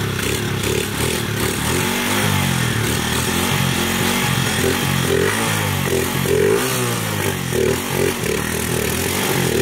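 Motorcycle engine running and being revved up and down over and over, the pitch rising and falling again and again.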